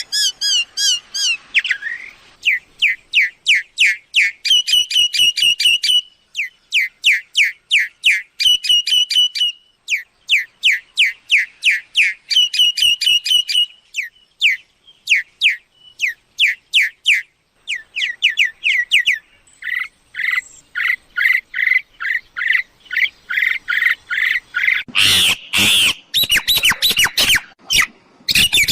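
Myna calling in repeated bursts of rapid, sharp, falling notes a few seconds long, breaking into harsh squawks near the end.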